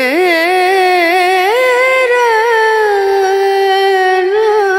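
A single voice singing a long, ornamented melodic line without words being clearly set apart: fast wavering vibrato for the first second or so, then a step up in pitch and slower slides between held notes.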